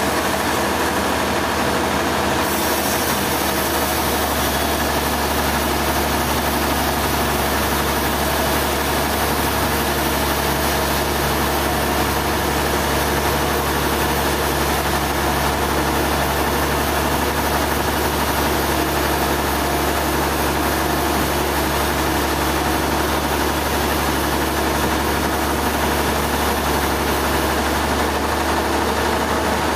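Sawmill machinery running steadily: a heavy engine's low hum under a dense, even mechanical din that never lets up.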